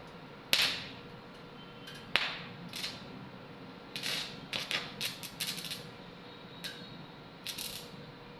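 Irregular sharp metallic clicks and short crackling bursts from welding work: two single clicks early on, each with a brief ring, then quick clusters of crackles in the second half.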